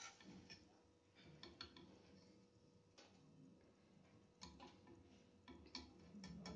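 Faint, irregular light clicks of a wire spider strainer knocking against the kadai as fried okra is lifted out and drained over the hot oil.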